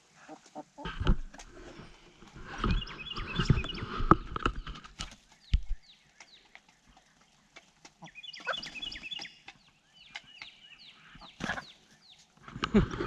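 Hens clucking and calling, with sharp clicks and heavy low bumps and rustling in the first half and again near the end as their feed is spread out.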